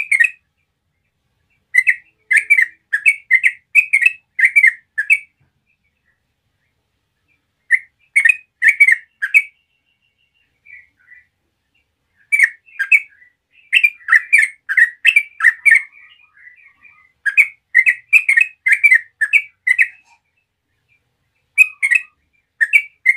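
A bird chirping in runs of short, repeated notes, about two or three a second, with pauses of a second or more between runs.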